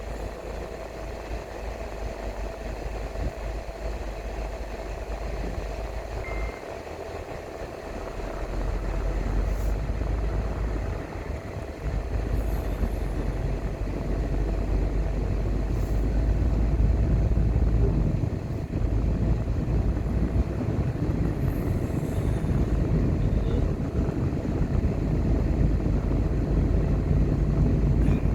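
Car driving on a road: a steady rumble of engine and tyre noise, growing louder about eight seconds in and again around twelve seconds.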